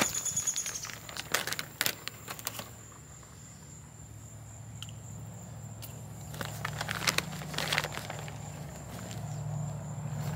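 Plastic potting-soil bag crinkling and crackling as it is pulled open by hand, in clusters at the start and again about two-thirds of the way through. A steady high insect trill runs underneath, and a low hum grows near the end.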